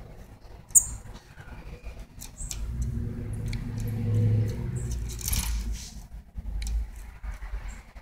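A low motor hum that swells for a few seconds in the middle and then fades, with scattered sharp clicks and taps; the loudest is a single sharp click about a second in.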